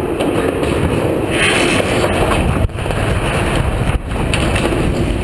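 Loud continuous rumble with wind buffeting the microphone as a steel water tower felled by explosive charges topples and comes down. The noise drops out abruptly twice, around the middle.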